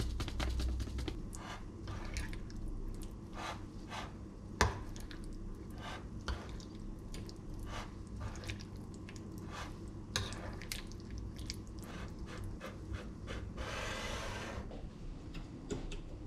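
A spoon stirring and scraping a creamy sauce in a small bowl, with many small clicks and taps of the spoon against the bowl and one sharper tap about a third of the way in. A brief hiss about three-quarters of the way through.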